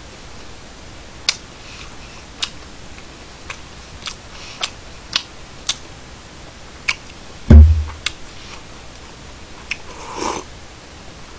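Close-miked eating: sharp mouth clicks and smacks of chewing, one heavy low thump about seven and a half seconds in, and a short slurp from a soup bowl near the end.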